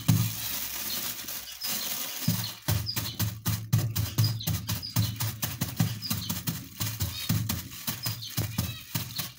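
A bag of colonised lion's mane grain spawn being broken up by hand: irregular crunching and crackling of the grains with plastic crinkling, over low thuds as the bag is squeezed and pressed.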